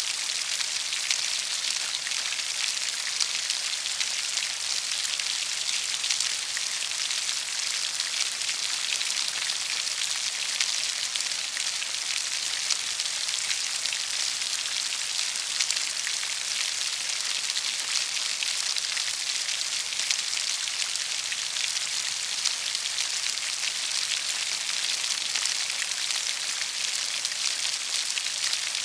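Steady rain falling, an even hiss of many fine drops with small drop ticks all through.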